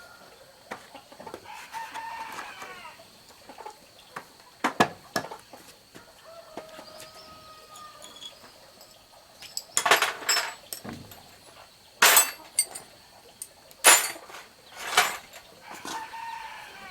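Chickens clucking, in two short bouts of calls, one near the start and one near the end. In between come several sharp knocks or clinks, the loudest coming a few seconds apart in the second half.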